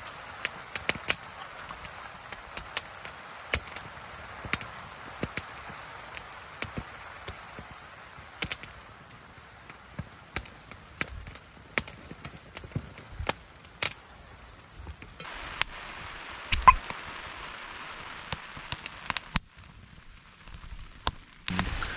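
Split-firewood fire crackling and popping in a small fire stand, with frequent sharp, irregular pops. One louder knock stands out about seventeen seconds in.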